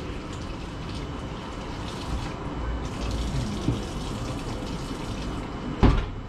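Tap water running into a kitchen sink as mizuna greens are rinsed in a colander. A single sharp knock near the end.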